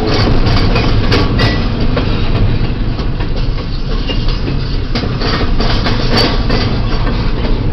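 Double-stack intermodal freight train well cars rolling past, steel wheels on the rails making a steady low rumble with a few sharp clanks.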